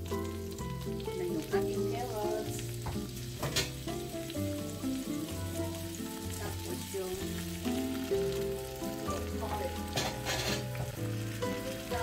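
Sliced carrots and broccoli stalks sizzling in hot oil in a wok as a metal spatula stirs them, with sharper, louder bursts about three and a half and ten seconds in. Background music plays under it.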